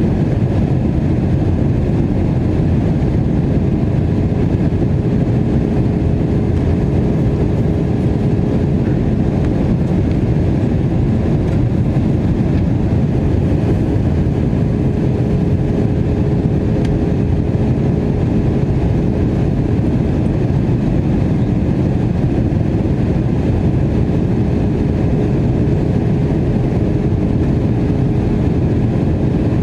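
Airbus A321 airliner in flight on approach, heard from inside the cabin as a steady, even rumble of engines and rushing air with a faint constant hum.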